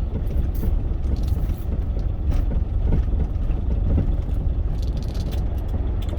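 Cargo truck driving, heard from inside the cab: a steady low engine and road rumble, with a few scattered small clicks and rustles.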